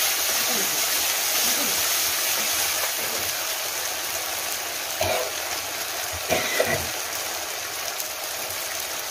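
Fish curry boiling in a metal kadai: a steady bubbling hiss of liquid at a hard boil. A few short knocks about five and six and a half seconds in.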